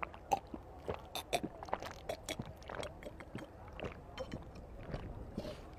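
People drinking coconut water straight from fresh green coconuts: an irregular run of soft gulps, sips and small clicks.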